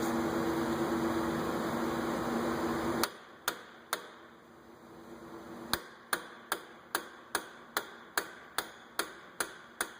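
A steady whirring hum that cuts off about three seconds in, followed by hammer blows on metal: three strikes, a short pause, then a regular run of about eleven strikes at a little over two a second, each with a short metallic ring.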